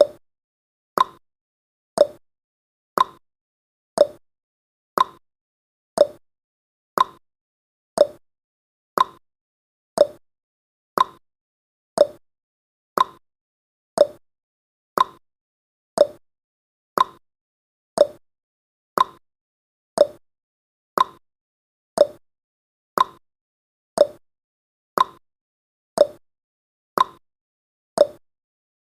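A countdown timer's tick sound effect: one short, sharp tick every second, evenly spaced, with quiet between ticks.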